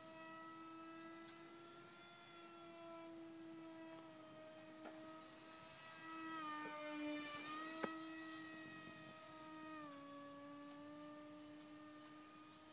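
Small radio-controlled model plane's motor and propeller whining steadily in flight. The whine swells around the middle as the plane comes closer, and its pitch drops a step about ten seconds in. One sharp click about eight seconds in.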